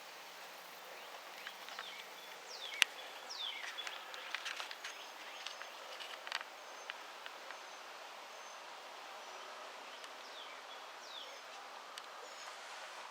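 Faint outdoor ambience with scattered bird chirps, short high calls that slide downward, and a few light clicks, one sharper click about three seconds in.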